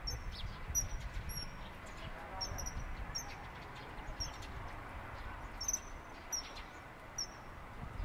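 Common kingfishers giving short, high, thin piping calls, about one or two a second, over a low steady rumble.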